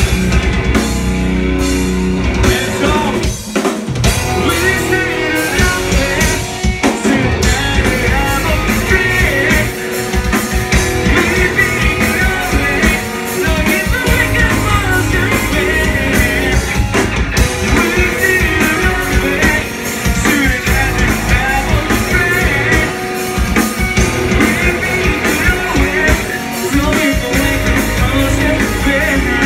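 Metalcore band playing live at full volume: drum kit, guitars and a vocalist singing into the microphone, heard from among the audience.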